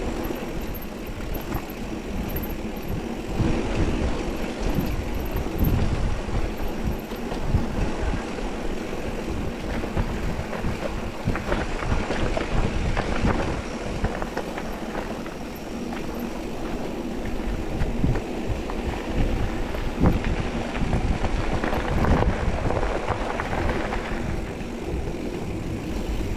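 Mountain bike riding down a rough dirt trail: a steady rumble of wind on the microphone with dense, irregular knocks and rattles from the tyres and frame over the ground.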